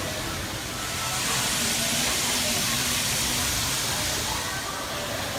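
An N-gauge model train running past on the layout track: a hissing rush that swells about a second in and eases near the end.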